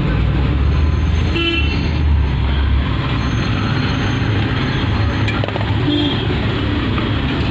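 Steady low rumble of road traffic, with a short vehicle horn toot about a second and a half in and another brief toot around six seconds.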